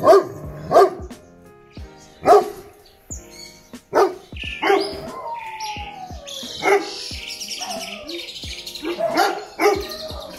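Doberman barking: a quick run of deep barks at the start, then single barks every second or two and another cluster near the end. Birds chirp in the middle.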